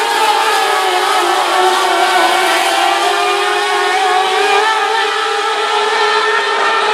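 Several mini late model race cars running at speed together, a blend of engine notes that rise and fall slightly as they circle the track.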